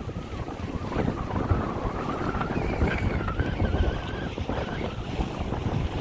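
Wind buffeting the microphone on a small boat under way, over the steady running of the boat's motor and water rushing past the hull; a faint wavering tone rides under the rumble.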